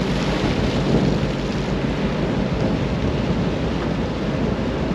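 Wind buffeting the microphone over a steady low rumble from a ship at sea.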